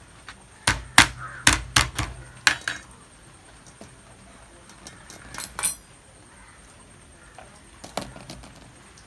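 Sharp knocks and clinks of kitchen utensils and dishes: a quick cluster of about six in the first three seconds, then two more around five and a half seconds and one near eight seconds.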